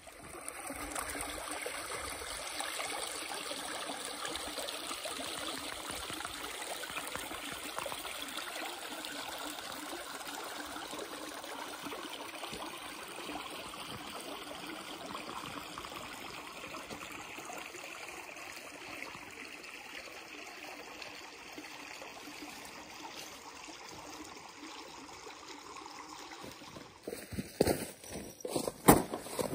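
A mountain stream flowing steadily. Near the end, a few loud footsteps on dry fallen leaves.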